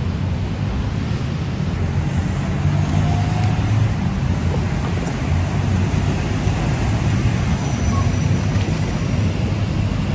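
Steady low rumble of city road traffic, with no single vehicle standing out.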